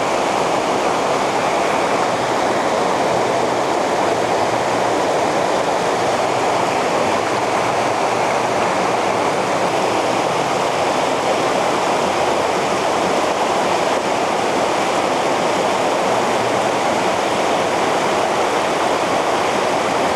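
River water rushing over a stony bed, a steady, even rush with no breaks.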